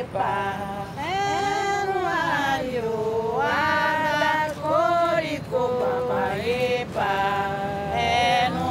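Women's voices singing a Candomblé chant to Oxalá, in long-held notes that slide from pitch to pitch.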